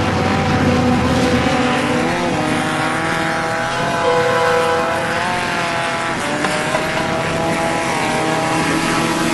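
Off-road race vehicle engine running loud, its pitch rising and falling repeatedly as the revs change.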